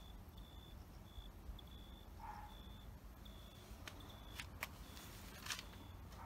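Faint background rumble with a short high-pitched beep repeating about every three-quarters of a second. Several sharp clicks come about two-thirds of the way in.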